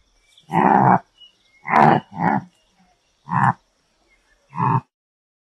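Antelope calling: five short calls, each half a second or less, with the second and third close together.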